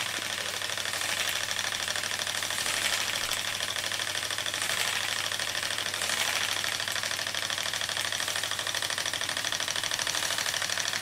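Märklin toy steam donkey engine running steadily, its piston and crank beating a rapid, even rhythm. A hiss of steam comes from minor leaks in the engine.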